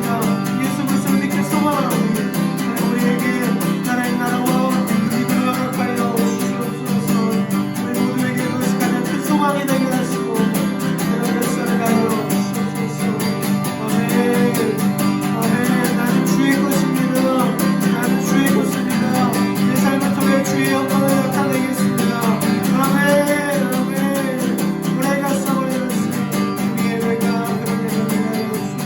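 Strummed acoustic guitar accompanying a voice singing a worship song.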